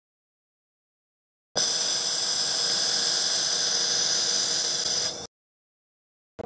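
Handheld laser welding gun firing along a steel tube seam: a steady, high-pitched hiss with a faint constant whine, starting abruptly about a second and a half in and cutting off abruptly some three and a half seconds later.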